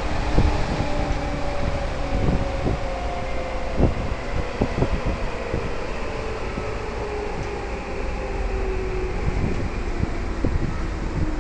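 Tokyu 8500 series electric train heard from inside the car: the traction motors whine in several tones that fall slowly in pitch as the train slows, over a steady running rumble, with a few short knocks from the wheels on the rails.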